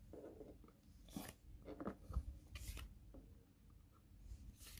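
Faint rustling and a few short scrapes of trading cards and their packaging being handled on a table.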